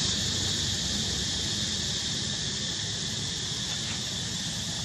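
Steady, high-pitched drone of an insect chorus, without a break.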